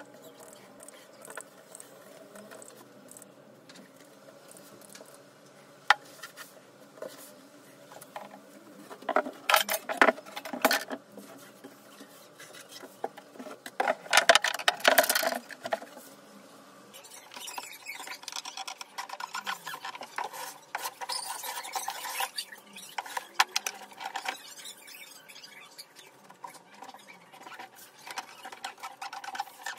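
Handwork on wooden parts: intermittent rubbing and scraping with scattered knocks. Two louder stretches of rapid scraping and knocking come about nine and fourteen seconds in.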